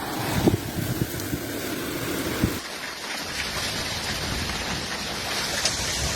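Heavy rain pouring down in a thunderstorm, a steady rushing hiss, with a few low knocks in the first couple of seconds.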